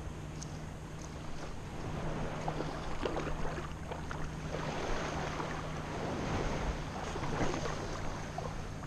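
Wind rumbling on the microphone and water sloshing and splashing close by, in irregular bursts that get busier from about two seconds in.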